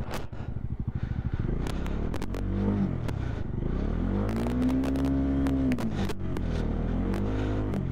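Bajaj Dominar 400's single-cylinder engine pulling the bike along at low speed, revving up, holding, easing off around six seconds in and picking up again near the end, with scattered clicks and crackles over it.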